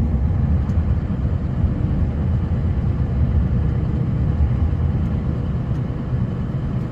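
Snowplow truck driving, a steady low engine and road rumble.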